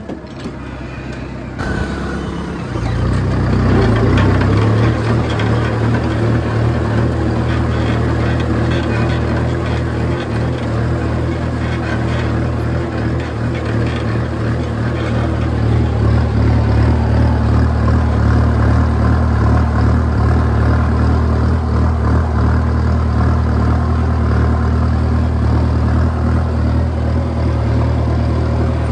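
Kubota M6240 tractor's diesel engine running steadily under load as it pulls a disc plough through dry soil. It grows louder about two to four seconds in, then holds an even drone.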